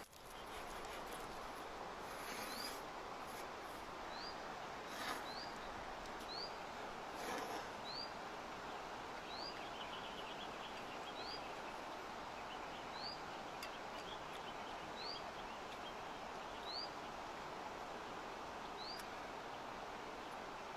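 Outdoor ambience: a steady rushing hiss with a small bird repeating a short rising chirp every second or two. A few brief louder noises come in the first seven seconds.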